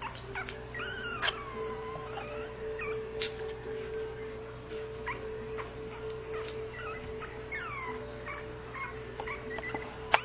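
Pomeranian puppy whimpering and whining: a string of short, high squeaky whines, several falling in pitch, over a steady background tone, with a sharp click near the end.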